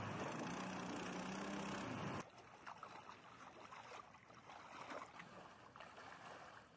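Mud Skipper mud motor on a pirogue running at a steady drone, cutting off abruptly about two seconds in. After that, fainter irregular sloshing of shallow water as a hunter in waders wades and drags the pirogue through flooded reeds.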